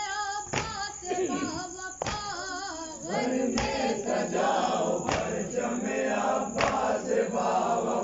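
A Muharram nauha (mourning lament) sung in Urdu. A single male lead voice carries the first three seconds, then a chorus of mourners' voices takes up the refrain. Sharp unison slaps land about every second and a half throughout: the mourners' matam, chest-beating in time with the lament.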